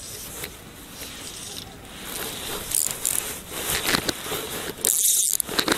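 Rustling and rubbing handling noise with wind on the microphone, with scattered scrapes and clicks, growing louder about two seconds in.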